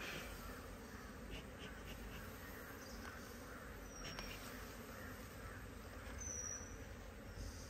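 Honeybees buzzing faintly and steadily as a queenless colony, smoked and shaken off its combs, flies off the opened hive. A couple of short, faint high chirps come through about four and six seconds in.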